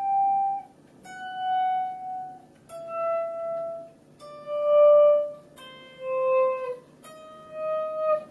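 Electric guitar playing single notes through a Donner Viper Mini volume pedal, each note faded in and out with a volume swell. About seven notes, one every second or so, stepping mostly downward in pitch.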